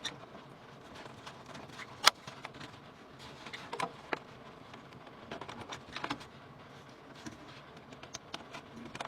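Scattered sharp clicks and light knocks of computer hardware being handled and fitted, with one loud click about two seconds in.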